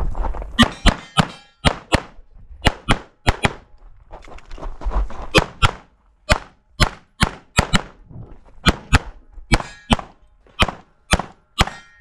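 Walther PDP steel-frame pistol fired in rapid strings during a USPSA Carry Optics stage: about two dozen shots, mostly in quick double taps, with a pause of about a second roughly four seconds in. A few shots are followed by a brief ringing.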